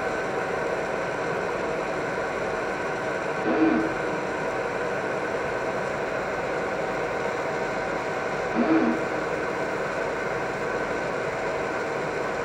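Fiber laser marking machine running while it marks a ring: a steady whir with faint steady tones, broken twice, about five seconds apart, by a brief low tonal sound.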